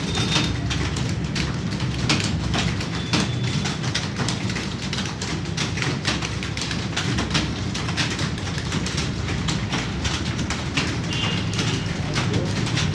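Computer keyboard being typed on: a rapid, irregular run of key clicks over a steady low rumble, with a few short high chirps.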